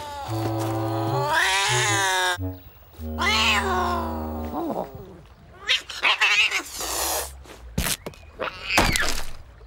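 Cartoon cat yowling and caterwauling in long, wavering cries, with low held notes underneath. There are two sharp hits near the end.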